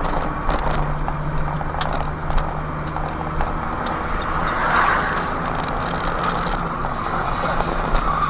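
A vehicle's engine and road noise while driving in city traffic, recorded by a dashcam: a steady low engine hum with light clicks and rattles.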